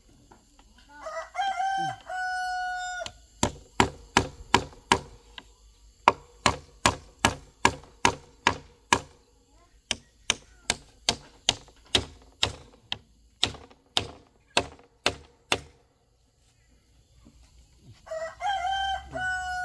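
A hammer drives nails through a wooden batten, striking about two steady blows a second for some twelve seconds with a couple of short pauses. A rooster crows about a second in and again near the end.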